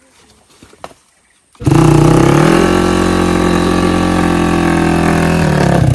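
Off-road motorcycle engine starting abruptly about a second and a half in, its revs climbing and then held steady and high, easing off near the end, as the bike is worked through deep mud.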